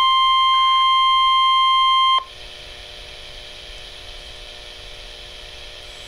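NOAA weather radio receiver sounding the steady 1050 Hz warning alarm tone through its small speaker, the signal that a tornado warning broadcast follows. The tone cuts off suddenly about two seconds in, leaving faint hiss from the radio.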